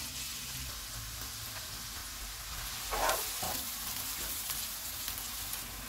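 Chopped onion sizzling steadily in hot oil in a nonstick pan, frying toward golden. About three seconds in, two short scrapes of a stir.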